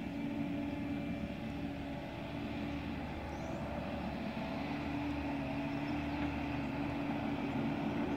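Bobcat E42 mini excavator's diesel engine running steadily while the machine swings its boom, its note wavering slightly with the hydraulic load.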